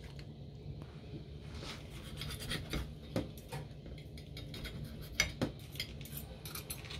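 Knife and fork clicking and scraping on a plate as a rolled pork roast is cut, in scattered irregular clicks, a few sharper ones about three and five seconds in.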